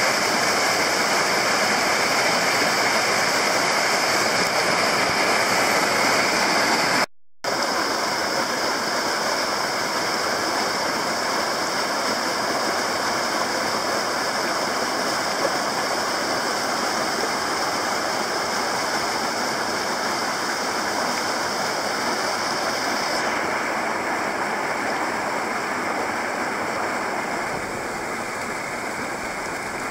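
Small waterfall and rapids of a mountain stream rushing steadily. The sound cuts out for a moment about seven seconds in, and the rush grows a little softer near the end.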